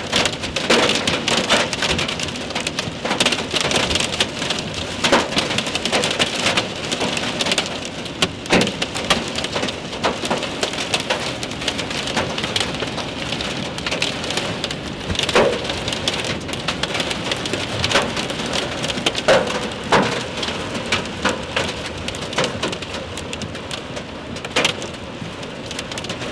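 Heavy rain pouring in a hailstorm, with many sharp, irregular strikes of hail among the steady downpour.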